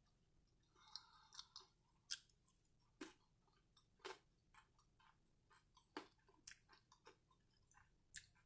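Faint close-up chewing of a chicken and cheese quesadilla: soft wet mouth clicks and smacks, roughly one a second.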